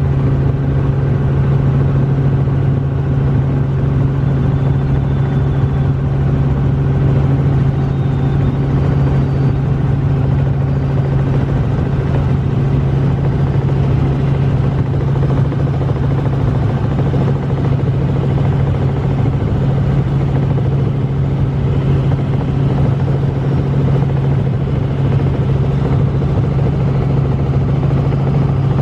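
Light helicopter in flight, heard from inside the cabin: a loud, steady drone of engine and rotor with a strong deep hum that never changes.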